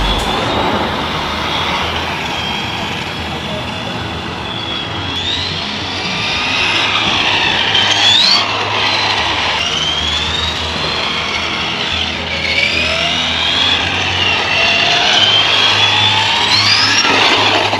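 Electric whine of a 1/10 RC touring car's brushed 540 motor and gearing, running laps on a track. The pitch rises several times as the car accelerates down the straights and drops back as it slows for the corners.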